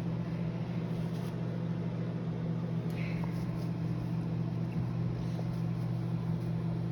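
Microwave oven running with a steady low electrical hum while it heats and melts a bowl of butter and mini marshmallows.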